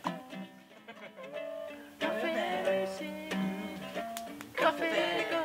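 Background music on a plucked acoustic string instrument, guitar- or ukulele-like, playing a melody in held notes. It grows fuller about two seconds in and again near the end.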